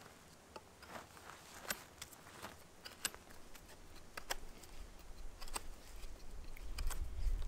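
Knife whittling a wooden stick: irregular short cuts and scrapes, a few sharp clicks. A low wind rumble on the microphone builds near the end.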